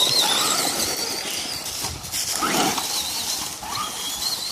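Radio-controlled cars' electric motors whining at high pitch, the whine wavering up and down with the throttle, over a steady hiss, with a couple of short rising revs.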